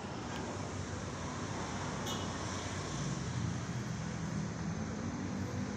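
Street traffic noise with a motor vehicle engine running, its low hum growing louder about halfway through.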